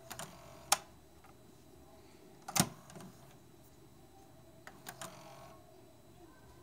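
TEAC V-8030S cassette deck's transport keys being pressed, the mechanism answering with clicks and clunks: a sharp click under a second in, a louder, deeper clunk about two and a half seconds in, and a couple of lighter clicks near five seconds.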